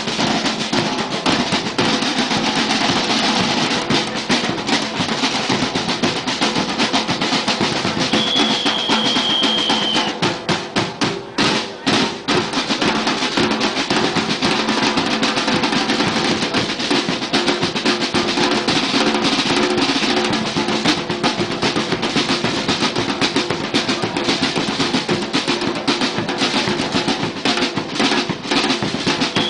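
Supporters' drum band playing a fast, driving rhythm on snare drums and bass drums (bombos). About eight seconds in a long high whistle note sounds, and a little after ten seconds the drumming breaks into a few sharp unison hits before the rhythm picks up again.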